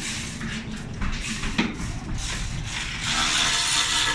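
Tire-shop tool noise: irregular mechanical clattering and ratcheting, then a loud steady hiss starting about three seconds in.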